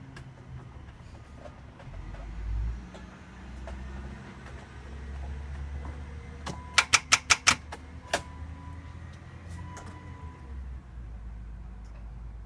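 A BMW E30 making an odd noise at the ignition: over a low steady hum, six sharp clicks come in quick succession about two-thirds of the way through, followed by a single click a moment later.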